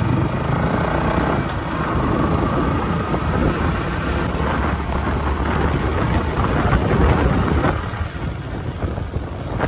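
Motorcycle riding at road speed, its engine mixed into heavy wind rumble on the microphone.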